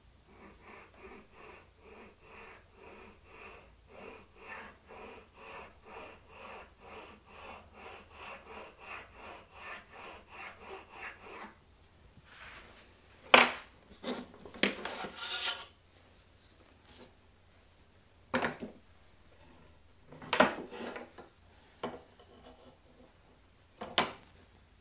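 A small hand file rasping on a wooden fretboard in even back-and-forth strokes, about two or three a second: the final hand-shaping of a recess so that the board sits over the walnut truss-rod plug. After about 11 seconds the filing stops and a few separate sharp knocks and short clatters follow as tools and the board are set down and handled.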